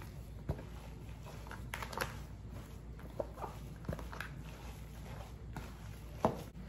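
A spoon stirring moist chicken dressing wetted with chicken broth: soft, wet squishing with a scattering of irregular light clicks of the spoon against the dish.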